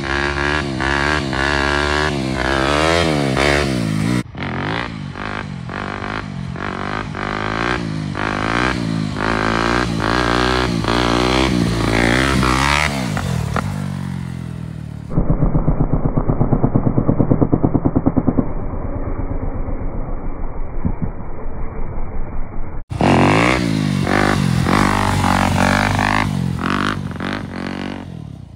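Dirt bike engine revving up and down again and again, its pitch rising and falling with the throttle as the bike is ridden and pulled into wheelies. The sound is cut between several takes; the middle stretch is duller and muffled, with a fast, even chugging.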